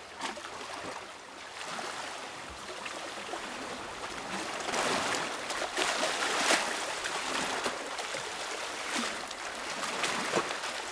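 Small sea waves washing and splashing against concrete tetrapods at the shoreline, swelling louder a few seconds in.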